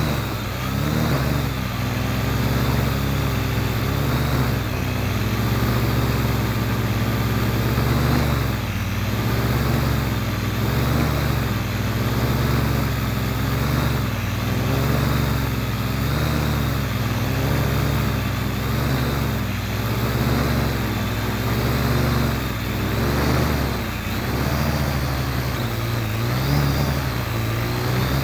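Parrot AR.Drone quadcopter's electric motors and propellers whirring close by in flight. The pitch wavers up and down every second or two as the motors change speed to hold the drone steady.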